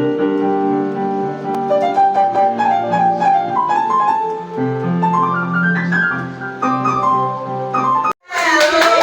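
Instrumental piano music with melodic runs over sustained chords. It cuts off abruptly about eight seconds in, and louder clapping and voices begin.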